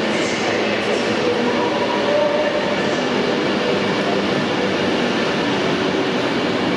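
Avanti West Coast Pendolino electric train running past the platform, a steady, continuous rumble of wheels on rail.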